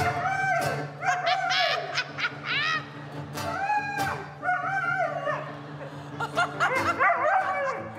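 A dog barking along in pitch to a strummed acoustic guitar, picked up close by a microphone on its collar. The short, pitched barks rise and fall and come several to a second, over steady guitar chords.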